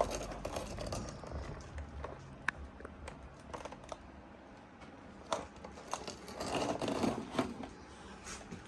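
Handling noise: scattered light clicks and rustles, with a sharp tick about two and a half seconds in and a louder rustling stretch near the end.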